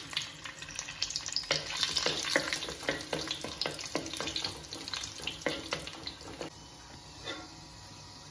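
Raisins sizzling as they fry in hot ghee and oil in a nonstick pot, with a spatula scraping and clicking against the pan as they are stirred. The stirring stops about two-thirds of the way through, leaving a fainter, steady sizzle.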